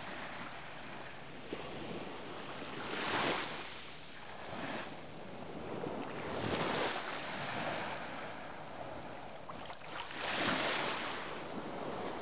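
Small sea waves washing onto a sandy beach, the surf swelling and fading every few seconds.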